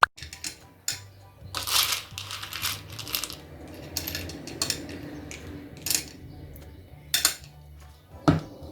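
Small toy dishes and utensils clinking and tapping as pretend food is served onto plates, about seven separate light knocks spread over several seconds.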